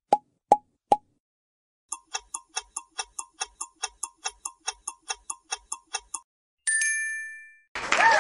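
Quiz-show sound effects: three short pops as answer options appear, then a clock ticking out a countdown at about five ticks a second for some four seconds. A bright chime follows and rings out, and applause starts near the end.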